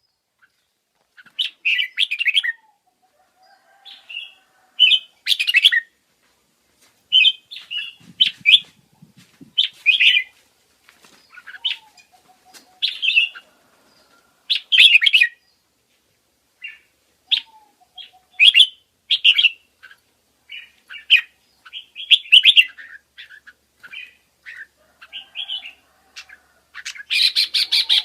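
Forpus parrotlets chirping in short, high bursts every second or two, with a brief flutter of wings about eight seconds in.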